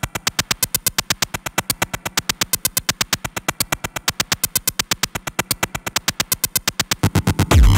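Opening of an electronic track: a fast, even stream of short sharp synth hits, about eight a second. Near the end a louder passage with heavy bass comes in.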